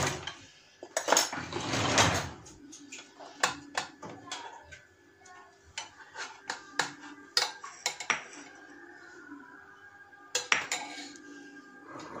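Wire whisk clinking and scraping against a stainless steel saucepan as chocolate sauce is scooped out: a scraping stretch early on, then a run of separate sharp clinks and knocks.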